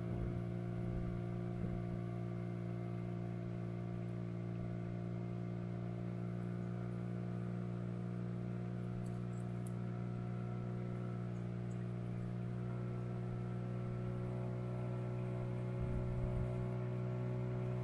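Boat's outboard motor running steadily at constant throttle, a level, unchanging drone.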